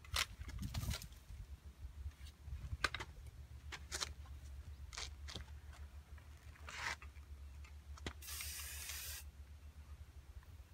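Long-handled pruning shears cutting juniper branches: a series of sharp clicks and snaps, with about a second of rustling hiss near the end.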